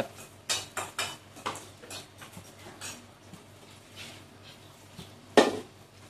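Wooden chopsticks tapping and scraping against an aluminium pan while stirring pieces of bird braising in coconut water: a string of separate light clicks, and one louder knock near the end.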